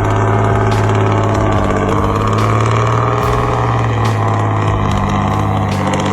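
Heavily loaded timber truck's diesel engine running hard and steady as it climbs a slope, labouring under the weight.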